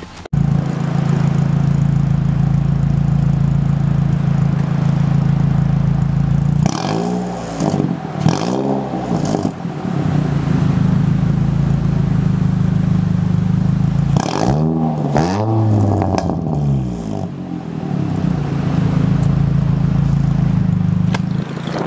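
Car engine heard at the exhaust tailpipe, idling steadily and revved in a few quick throttle blips in two bursts, about seven and fourteen seconds in, dropping back to idle after each.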